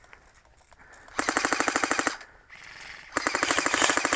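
Airsoft electric gun firing full-auto in two bursts of about a second each, a rapid rattle of about fifteen shots a second, the second burst coming about a second after the first ends.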